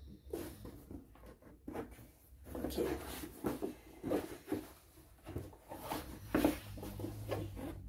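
Rigid cardboard gift box being opened and its contents handled: a string of short scrapes, rustles and light knocks at uneven spacing.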